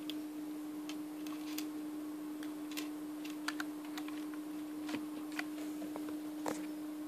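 Scattered light clicks and taps of a USB flash drive and a netbook being handled, irregular and a little denser in the middle, over a steady low hum.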